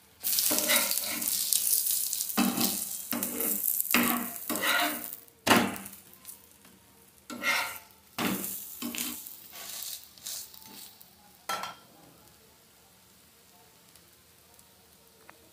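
Oil sizzling on a hot tawa as a metal spatula scrapes and lifts batter-coated bottle gourd slices, in a run of short scraping strokes. After about twelve seconds it drops to a much quieter faint background.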